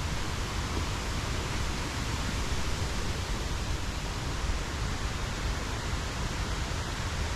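River water rushing steadily, an even hiss of noise with no breaks.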